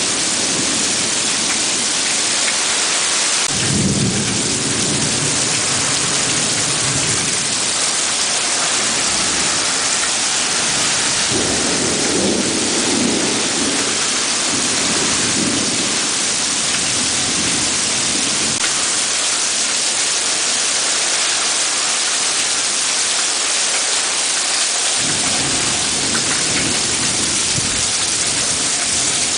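Heavy thunderstorm rain pouring steadily, with thunder rumbling low in three spells: one breaking suddenly about three and a half seconds in, another about eleven seconds in, and a third starting near the end.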